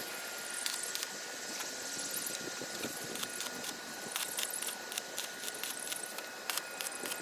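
Scattered light metallic clicks and clinks from steel being handled and worked, over a steady hiss and a faint constant high whine.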